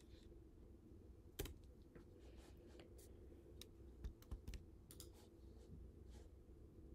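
Faint computer keyboard typing, scattered keystrokes with a few louder key clicks about a second and a half in and again around four to five seconds.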